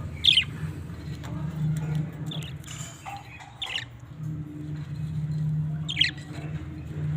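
Pet budgerigars giving a few short, sharp chirps, spaced a second or more apart, over a steady low hum.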